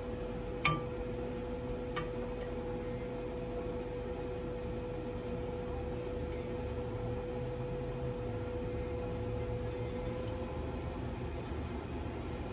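A steady low machine hum with a faint held tone that cuts out near the end. A single sharp click about a second in is the loudest sound.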